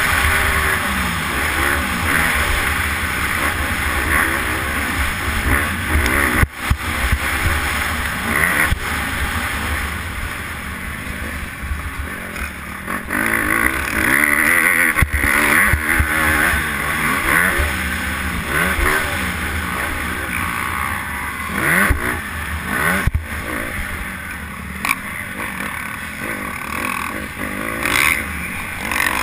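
Honda motocross bike engine revving up and down again and again as it is ridden hard around a dirt track, heard close from a helmet camera, with a few sharp knocks from the bumps.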